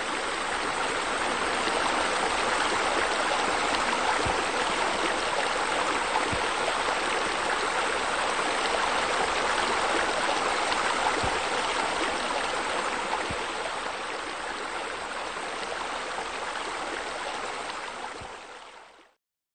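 Steady rush of running water, like a stream or a spa spilling over into a pool, fading out shortly before the end.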